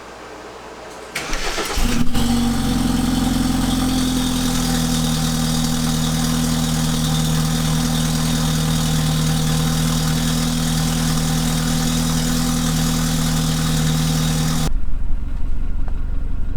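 BMW F30 328i's turbocharged 2.0-litre four-cylinder, with a freshly fitted catless downpipe, cranking briefly about a second in, catching and settling into a steady idle. Near the end the sound changes abruptly to a lower, uneven rumble.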